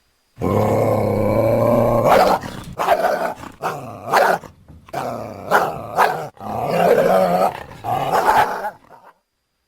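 Coyote vocalizations used as a bear-dog creature sound: a low, steady growl for about two seconds, then a run of short barking calls that stops about a second before the end.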